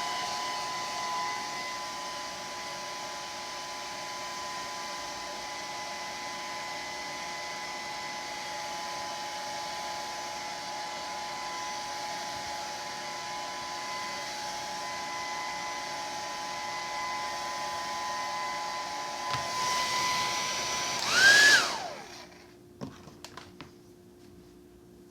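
Hand-held hair dryer blowing steadily on low heat, with a steady whine over the airflow. About three-quarters of the way through it surges briefly, its pitch sweeping up and then down, and stops, followed by a few light clicks.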